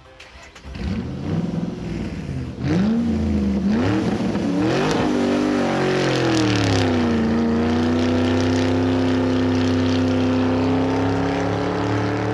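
A vehicle engine sound effect revving: its pitch swoops up and down several times, slides down, then settles into a steady drone.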